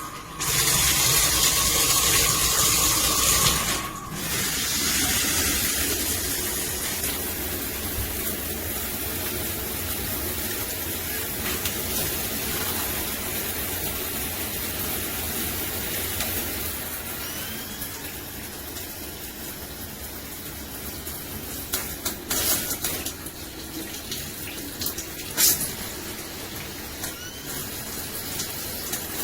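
Water spraying steadily from a MakeFit dual shower head. It is loudest for the first few seconds, with a high steady whine, then settles to an even hiss. A few sharp knocks come near the end.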